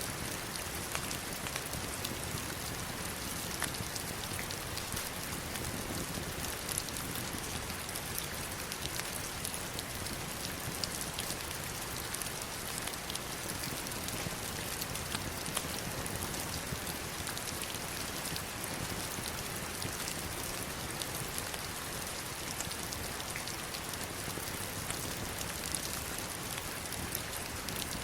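Steady heavy rain falling on stones: an even, dense hiss with many sharp individual drop hits, no thunder.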